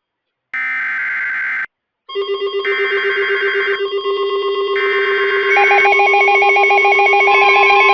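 Three EAS SAME header data bursts, about a second each with about a second between them, played over an electronic tune of layered synth tones that comes in about two seconds in and builds louder, with pulsing melodic lines joining past the midpoint.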